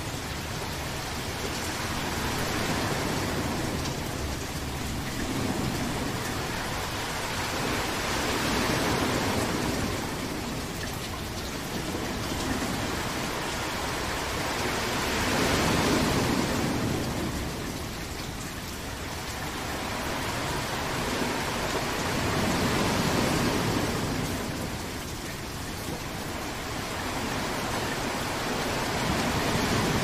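Steady heavy rain, a dense even hiss that swells and eases slowly every six or seven seconds.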